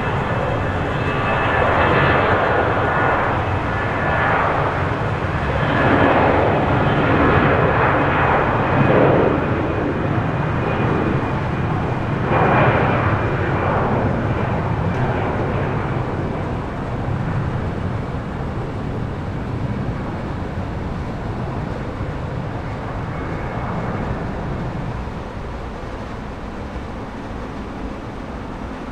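Airbus A319's CFM56 jet engines running loud, a roar with a faint high fan whine that swells and eases in waves, then fades gradually over the last dozen seconds.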